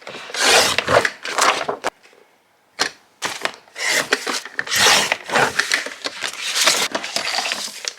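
Scrapbooking paper being handled, rustling and crackling in a series of noisy bursts, with a short pause about two seconds in that ends with a sharp click.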